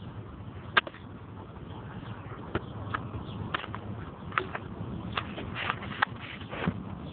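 Outdoor microphone noise, a steady low rumble, with a scattered series of short sharp clicks and ticks; the loudest click comes about a second in.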